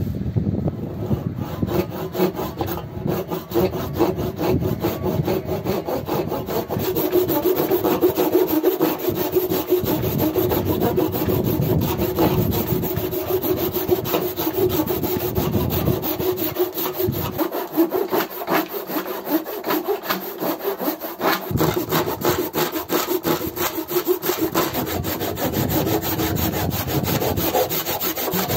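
Japanese single-edged hand saw cutting across a small fatwood branch, in rapid back-and-forth strokes that keep an even rhythm.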